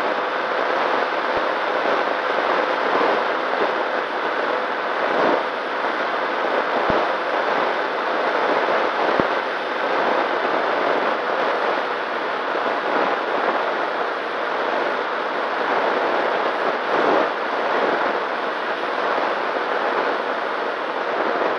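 Nano Talon FPV plane's electric motor and propeller in flight, heard through its onboard camera: a faint steady whine under a dense rush of airflow noise, swelling briefly about five and seventeen seconds in.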